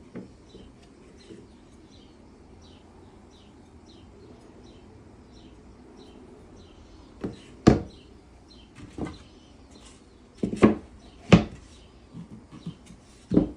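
A bird chirps about twice a second for the first few seconds. After that come irregular, sharp knocks on wood, about eight strikes over the last six seconds, loudest in the middle of that run and again near the end.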